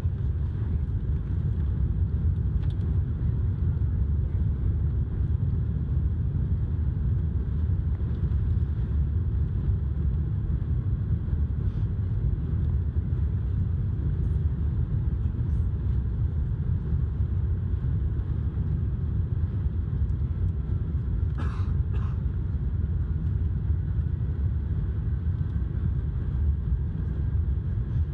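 Airbus A380 cabin noise during the takeoff roll: a steady, heavy low rumble from the engines at takeoff power and the wheels on the runway. Two short knocks come close together about three-quarters of the way through.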